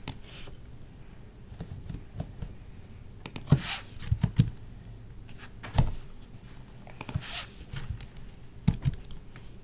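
Scattered clicks and light knocks from a computer mouse and keyboard, a handful spread over several seconds, with two short hissy sounds in between.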